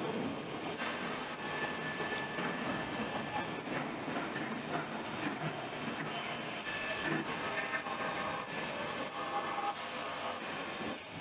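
Drill press boring with a larger-diameter bit into a steel excavator turntable: a steady machine running-and-cutting noise, with a high thin tone that comes and goes several times.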